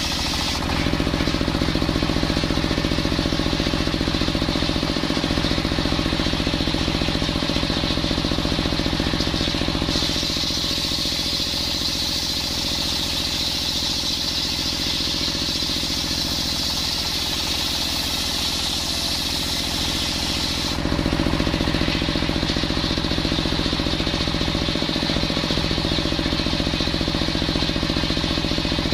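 Table circular sawmill running steadily, its large blade ripping coconut-wood boards, over a constant machine drone. The tone shifts about ten seconds in and shifts back about twenty seconds in, as the load on the blade changes.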